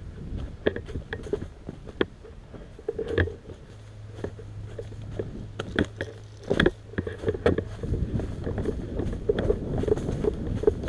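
Footsteps crunching over dry, rough ground, with gear rattling and knocking against the body-worn camera: irregular clicks and crunches. The sharpest knock comes a little past halfway, and a low steady hum sets in about four seconds in.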